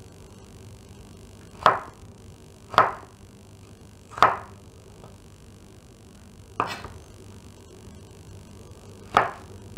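Chef's knife cutting through a raw potato and striking a wooden cutting board: five separate chops, irregularly spaced a second or more apart.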